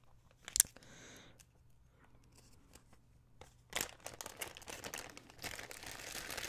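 Clear plastic zip-lock bag being pulled open: a sharp snap about half a second in and another near four seconds, then steady crinkling of the plastic as the bag is handled.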